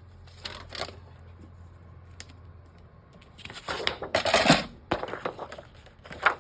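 Sheets of scrapbook paper and craft tools being handled on a work table. There is a brief rustle about half a second in, a longer, louder stretch of rustling and clatter around four to five seconds in, and a sharp click near the end.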